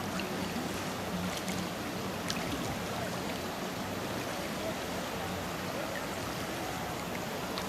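River water rushing and lapping steadily around floating inner tubes, under a faint low steady hum, with a few small clicks and faint distant voices.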